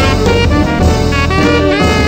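Saxophone playing a quick jazz line of short, changing notes, with bass and drums behind it.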